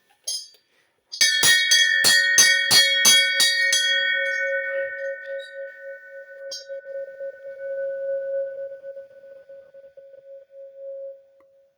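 A large bell struck about nine times in quick succession, roughly three strikes a second, then left to ring on, its note of C sharp 5 wavering slightly as it slowly fades.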